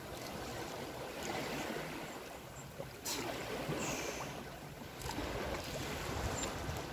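Shallow seawater lapping and splashing at a pebble shore as people wade in it, with a low wind rumble on the microphone during the second half.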